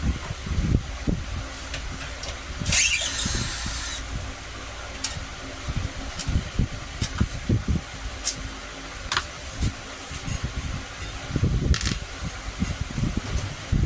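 Repair handling noises: repeated knocks and clicks of tools and parts, with a brief whirring, hissing burst about three seconds in.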